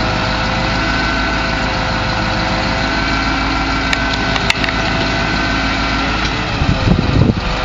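Detroit 8.2L V8 diesel engine of a 1989 GMC TopKick truck idling steadily, with a few sharp clicks about four seconds in and some low bumps near the end.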